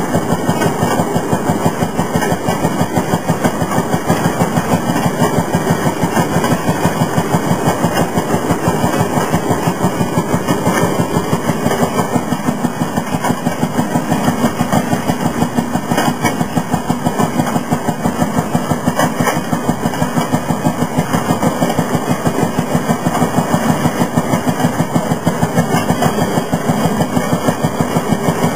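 Fairmont M-19 railroad motorcar's single-cylinder two-stroke 5 hp engine running steadily while the car is under way, a rapid, even putt-putt of firing strokes.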